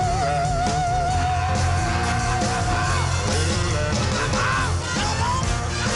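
Early-1960s rock and roll record: a singer holds one long, wavering high note for about three seconds, then breaks into shorter sung phrases over a steady bass and drum beat.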